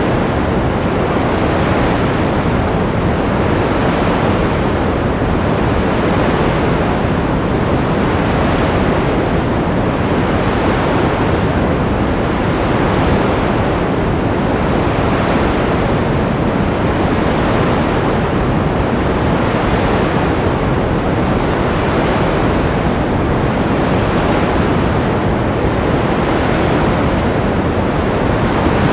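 Ocean surf: a continuous, steady rush of breaking waves, its hiss swelling softly about every two seconds.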